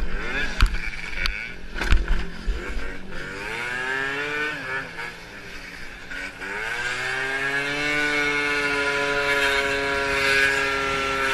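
Motorcycle engine revving up, easing off, then rising again and holding a steady high note as it pulls through traffic, with wind rumble on the rider's microphone. A few sharp knocks come in the first two seconds.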